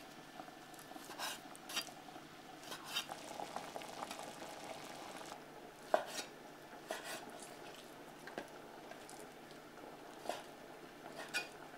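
Kitchen knife cutting raw chicken breast into cubes on a wooden cutting board: soft, irregular knocks of the blade on the board, about eight in all, over a faint steady background hiss.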